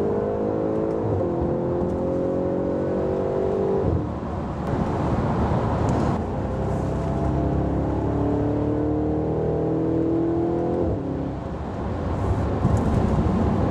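Audi RS5's 4.2 V8 with sport exhaust accelerating hard, engine note climbing in pitch through the gears, with upshifts breaking it about a second in, near four seconds and near the end.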